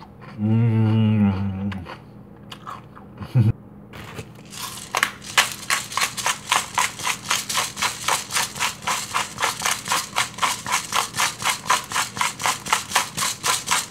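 Disposable black-pepper grinder being twisted by hand over fish fillets, grinding peppercorns. It makes an even run of rasping clicks, about four or five a second, from about four and a half seconds in. Before it there is a man's brief hummed 'mmm' and a single knock.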